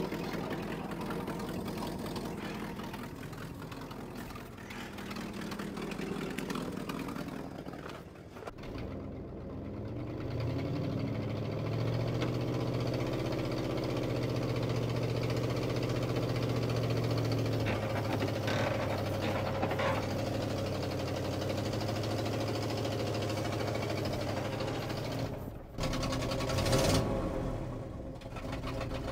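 The 1968 Ford F350's 360 cubic-inch FE V8 running unevenly with a fast steady beat. Its speed dips and rises several times, dropping out sharply near the end before picking up again. The owner takes the rough running for a fuel pump that is not keeping up.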